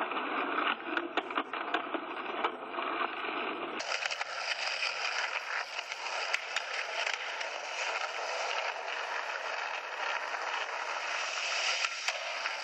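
Skateboard wheels rolling on concrete, with a few sharp clacks of the board in the first few seconds and a steady gritty rolling hiss after an abrupt change about four seconds in.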